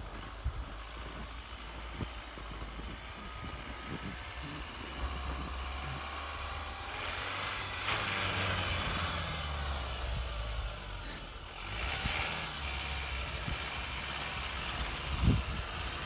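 Toyota Hilux pickup's engine running at low speed as it pushes through deep snow, the engine note growing louder about halfway through as it comes closer.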